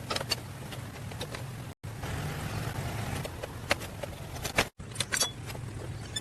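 Scattered metallic clicks and clinks over a steady low hum, interrupted by brief dead-silent cuts.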